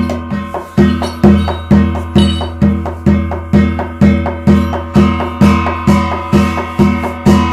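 Korean shamanic gut ritual music: percussion striking a steady beat of about two strikes a second over sustained ringing metallic tones.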